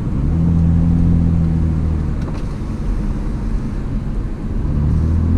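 Hyundai Azera V6 with its rear mufflers removed, heard from inside the cabin while driving: a steady low exhaust drone at an even pitch. It swells about half a second in, eases off after about two seconds, and swells again near the end.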